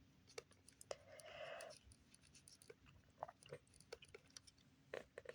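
Near silence with faint, scattered small clicks of plastic RC car parts being handled and fitted together by hand, and a brief soft hiss about a second in.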